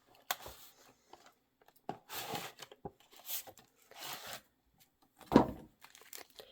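Model-locomotive packaging being handled and opened: a series of short rustles, crinkles and scrapes, with one louder knock about five seconds in.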